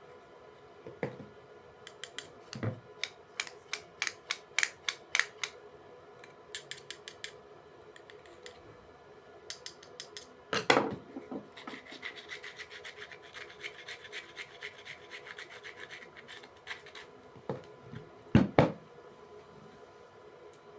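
Sandpaper rubbed over the metal pole faces of an opened contactor, cleaning them to cure its noisy pull-in: a run of short, quick rasping strokes, then a steadier stretch of rubbing. A few louder knocks of the parts being handled fall in between, the loudest about halfway through and near the end.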